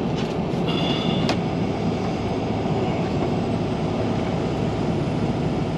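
Steady engine and road noise inside a vehicle cab, with a brief high squeak and a click about a second in.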